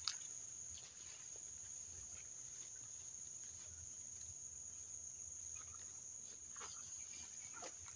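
Steady high-pitched drone of insects, crickets or cicadas, with a few faint rustles, most near the end.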